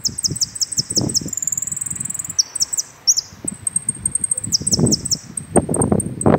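Caged saffron finch singing: quick runs of sharp, falling high notes with a held high whistle, in two or three phrases. Low rustling noise runs underneath and swells near the end.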